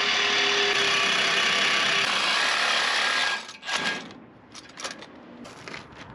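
Power cutting tool slicing through a steel C-channel bumper support, running steadily and stopping abruptly about three and a half seconds in, followed by a few short bursts.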